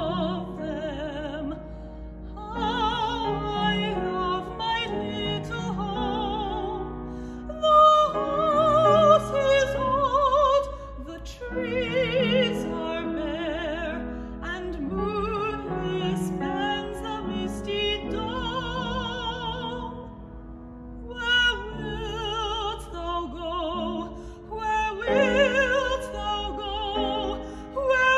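A woman singing an operatic aria in classical style with strong vibrato, accompanied by grand piano.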